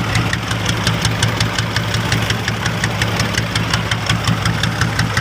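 Small boat's engine running steadily at idle, with an even knocking beat of about six strokes a second over a low hum.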